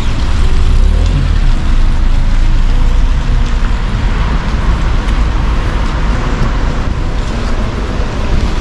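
A car drives slowly past close by and away across wet paving stones: engine and tyres hissing on the wet surface over a steady low rumble, loudest in the first few seconds.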